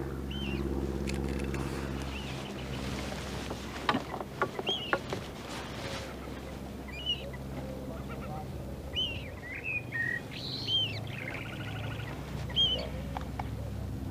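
Birds chirping in short repeated calls over a steady low mechanical hum, with a few sharp clicks about four to five seconds in.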